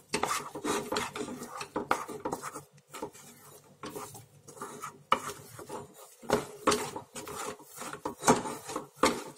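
A spoon stirring and scraping thick cooked rice-flour dough around a coated pan in quick, irregular strokes with light knocks against the pan. The dough is being worked until it thickens and comes away from the pan without sticking, the sign that it is cooked.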